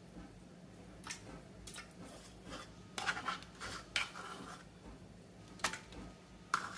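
Plastic spoon scraping soft butter out of a small tub and tapping it off into a bread maker's pan: a handful of short, separate scrapes and clicks, spaced irregularly.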